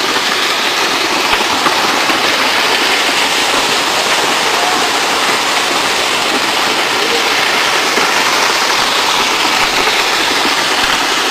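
Steady rushing of a mud and rock debris flow pouring down a slope, a continuous water-like rush without distinct rock impacts.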